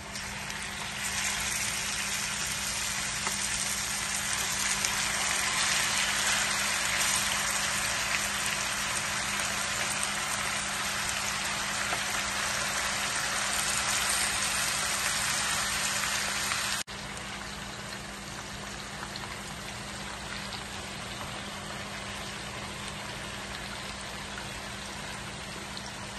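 Marinated chicken pieces sizzling as they are dropped into hot ghee and oil in a frying pan, shallow-frying. The sizzle builds over the first couple of seconds and stays loud, then drops suddenly to a softer steady sizzle about two-thirds of the way through.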